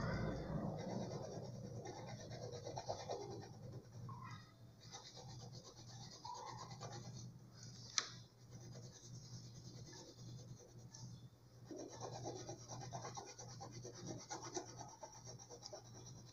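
Colouring strokes rubbing and scratching back and forth on paper, in runs with short pauses between them. A single sharp click comes about eight seconds in.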